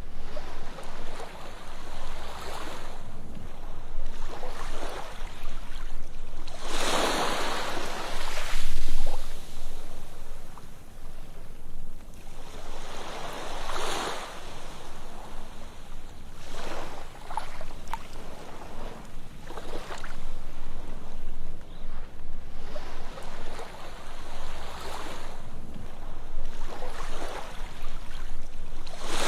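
Ocean waves breaking and washing up on a sandy beach over a steady low rumble of surf. A wave swells and breaks every few seconds; the biggest comes about seven seconds in and another about halfway through.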